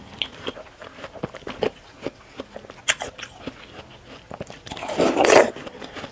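Close-miked chewing of watermelon, with small wet mouth clicks, then a crisp, juicy bite into a watermelon slice about five seconds in.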